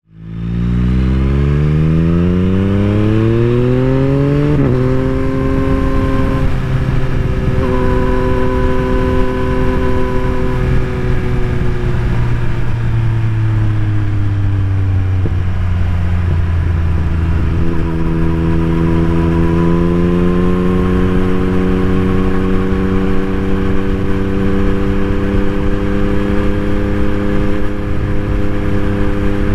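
A 2021 Yamaha MT-09's three-cylinder engine through an Akrapovic full carbon racing exhaust with no dB killer. It pulls up through the revs for about four seconds and the note breaks sharply at a quickshifter gear change. It then holds and eases off, changes gear again about halfway, climbs once more and settles into a steady cruise.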